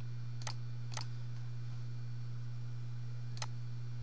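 Three sharp computer mouse clicks, two about half a second apart near the start and one near the end, over a steady low hum.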